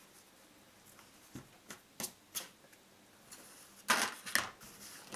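Scissors snipping loose thread ends on a fabric bag: a few short, sharp snips, then a louder rustle and clatter about four seconds in.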